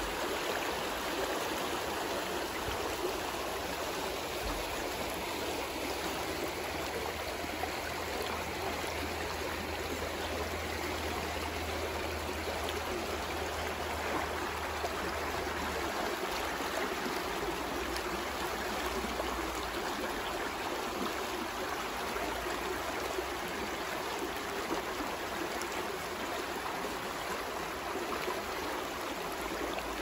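Small stony woodland stream flowing fast over rocks and riffles: a steady rush of running water.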